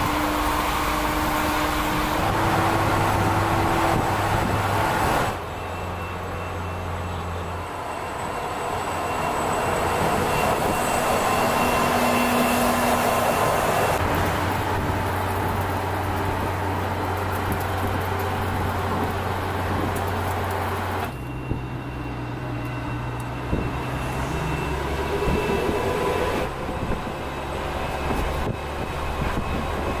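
Mercedes-Benz Actros hydrogen fuel-cell truck driving on a motorway: steady tyre and road rumble with a few steady whining tones, the sound changing abruptly several times.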